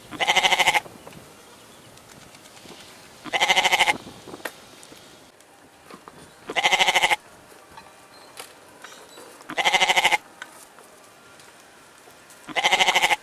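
Goat bleating five times, about every three seconds, each bleat a short wavering call of under a second, alike each time.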